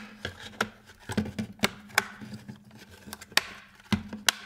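ABS plastic chassis plates being pressed together, their snap-fit tabs clicking into place in a series of sharp, irregular clicks.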